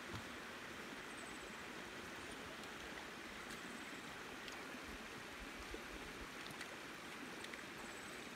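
Shallow river running over stones: a steady, even water noise, with a few faint high chirps over it.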